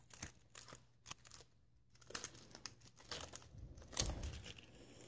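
Faint, scattered crinkling and rubbery rustling of a balloon being handled as slime is pushed into it with the fingers, with a low thump about four seconds in.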